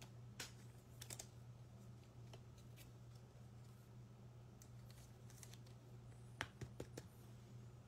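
Faint scattered clicks and rustles of trading cards being slid into plastic sleeves and handled, over a low steady hum.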